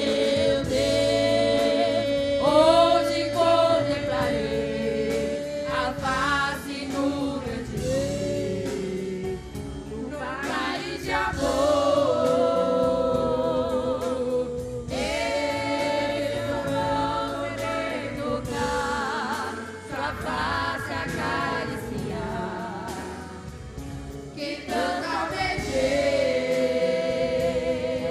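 A women's vocal group singing a gospel hymn together in sustained phrases over instrumental backing.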